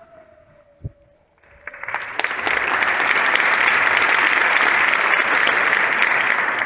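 An audience in an auditorium applauding. The clapping starts about a second and a half in and quickly builds to steady, loud applause that holds to the end.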